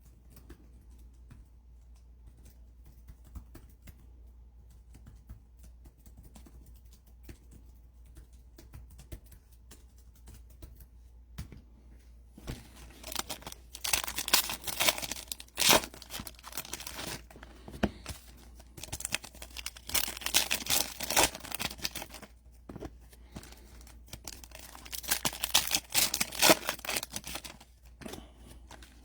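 Trading-card packaging being torn open and crinkled in three bouts of ripping, after about twelve seconds of faint clicks and handling.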